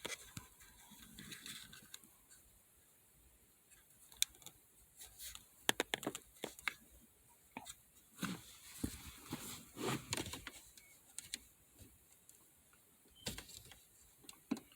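Hands working on a car's gear shifter: scattered small clicks and rattles of plastic shifter parts being handled, with some rustling, busiest in the middle.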